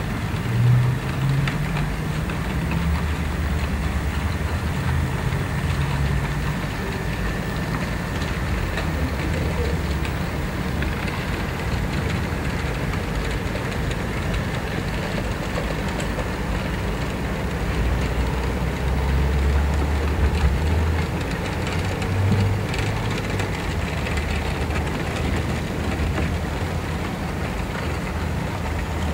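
Model freight train rolling along sectional track: a steady low rumble of wagon wheels on the rails and the locomotive's motor, with no break as the wagons pass.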